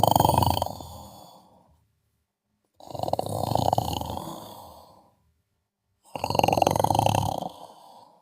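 Sleeper snoring: three rattling snores about three seconds apart, each starting strong and fading out.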